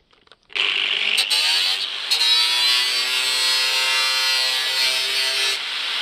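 Angle grinder starting about half a second in, its motor whine rising as it spins up. It then runs steadily while its cutting disc cuts through the thin tin casing of an old water heater.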